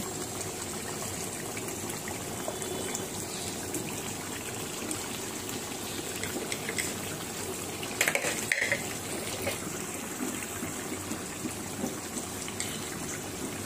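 Meat curry boiling in a wide metal pot on a gas burner: a steady bubbling, with a brief clatter about eight seconds in.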